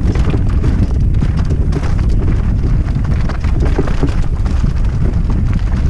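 Wind buffeting the camera microphone and mountain bike tyres rumbling over a loose, rocky gravel trail at speed on a descent, with a constant rattle of small knocks from the bike.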